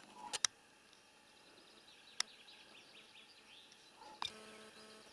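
Quiet outdoor ambience at a forest edge with faint bird chirping, broken by a couple of sharp little clicks. Near the end comes a short steady buzz of under a second.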